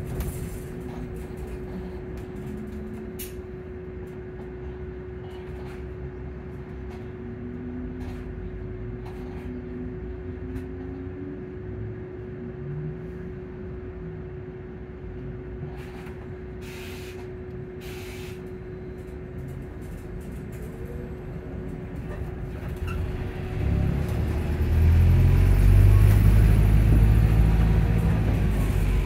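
Volvo diesel-electric hybrid bus heard from inside the passenger saloon: for most of the time a quiet electric-drive running noise with a steady whine and faint rattles, then about three-quarters of the way through the diesel engine cuts in and runs, much louder, with a low throb.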